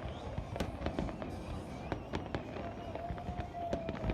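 Fireworks going off: an irregular string of sharp bangs and crackles over a continuous rumble, with a faint wavering tone joining about halfway through.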